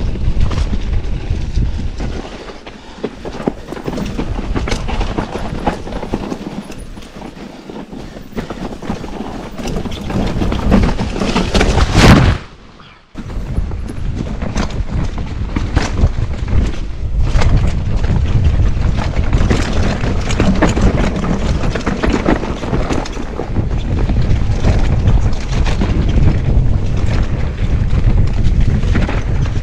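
Mountain bike descending a dirt trail, heard through a chest-mounted action camera: a steady rumble of tyres on loose dirt with constant rattles and knocks from the bike. It quietens for a few seconds early on, then a loud surge about twelve seconds in cuts off abruptly before the rumble resumes.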